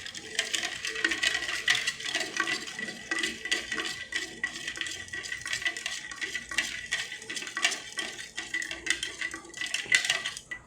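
A spoon stirring a spicy lime drink in a cup, clinking rapidly and continuously against the sides.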